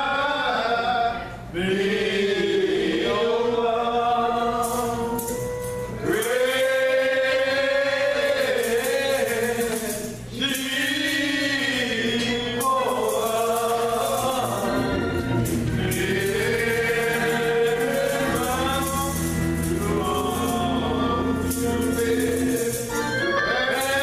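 Voices singing a slow gospel song in long, held notes, with steady low accompanying notes joining from about halfway through.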